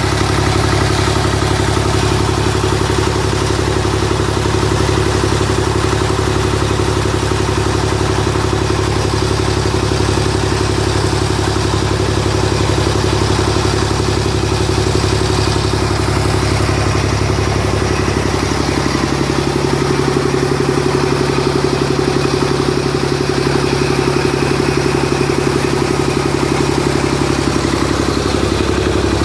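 An engine running steadily, its note shifting slightly about two-thirds of the way through.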